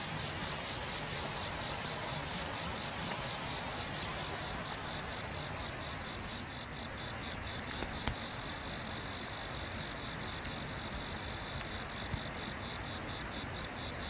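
Night-singing grass insects calling together: one steady, high-pitched trill with a second insect's pulsing chirp repeating a few times a second just below it.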